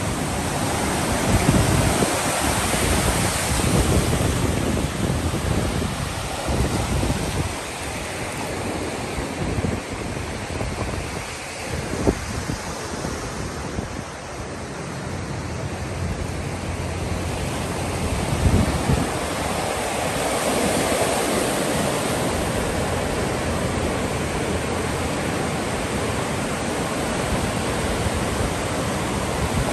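Lake Michigan waves breaking and washing onto the beach in a steady surf rush, with wind buffeting the microphone in gusts.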